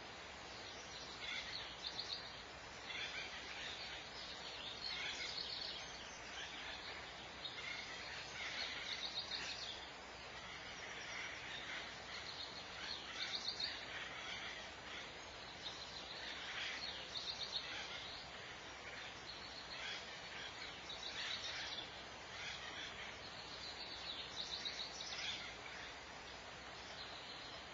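Barn owls hissing: raspy, breathy calls about a second long, repeated every second or two over a steady background hiss.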